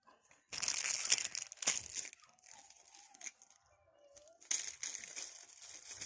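Two bursts of rough rustling noise, each lasting about a second and a half, the second starting about four and a half seconds in.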